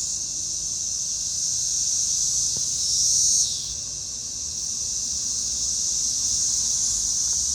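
Chorus of periodical (13- and 17-year) cicadas: a steady, high-pitched drone from the males' mating calls, swelling louder for about half a second around three seconds in and then dropping back.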